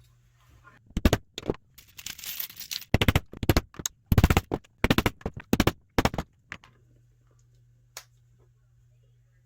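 Hammer striking a snap-setting die to fasten metal snaps into fabric: several bunches of rapid, sharp knocks from about a second in until just past six seconds, then a single click near eight seconds.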